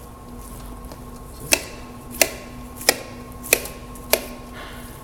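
Five sharp, evenly spaced chopping knocks on a cutting surface, about one every two-thirds of a second, as a lamb carcass is being cut up.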